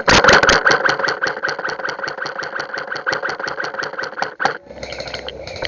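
Airsoft electric rifle firing a sustained full-auto string, rapid even clicks at about eight shots a second over the gearbox motor's whine, stopping about four and a half seconds in.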